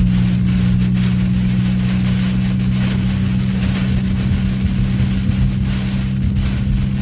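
Strong hurricane wind buffeting a car, heard from inside the cabin as a fluctuating rush of noise over a steady low hum from the car.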